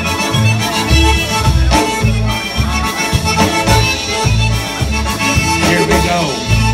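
Live polka band playing, the accordion carrying the tune over electric bass and drums, with a low bass note on about every beat.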